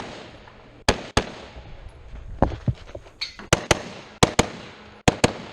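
Rifle shots fired rapidly in a timed course of fire, mostly as quick pairs, about ten shots in all, each with a short echo.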